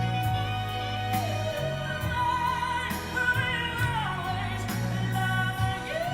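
A voice singing long held notes over a pop ballad backing track with a steady bass line; the melody holds one note, steps up higher in the middle and comes back down near the end.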